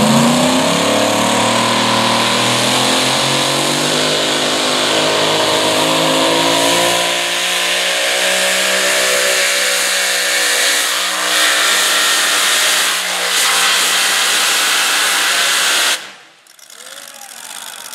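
Supercharged engine of a super modified pulling truck at full throttle during a pull, revs climbing at the launch and then held high and steady as it hauls the sled. The sound cuts off suddenly near the end.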